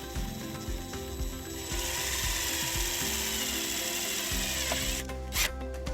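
Power drill driving a self-tapping grounding screw into the vehicle's sheet-metal body. It runs steadily for about three seconds and stops, followed by a single sharp click.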